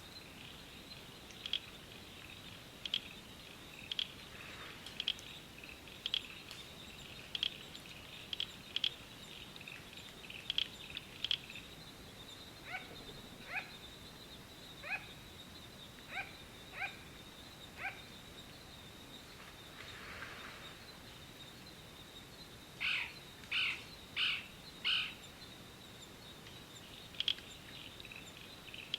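Wild birds calling: short, evenly spaced high calls at about one a second, then a run of lower calls with a fuller tone, and near the end four louder calls in quick succession. A steady high-pitched hum runs behind them throughout.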